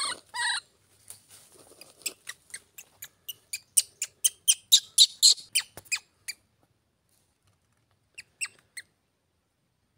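Baby monkey crying: two longer high-pitched squeals falling in pitch at the start, then a quickening run of short, high squeaks for about five seconds, and three more short squeaks near the end.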